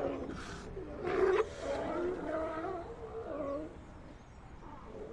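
Sea lions calling over one another: overlapping bellows and barks that bend in pitch, with two short hoarse bursts in the first second and a half, growing quieter in the last second or so.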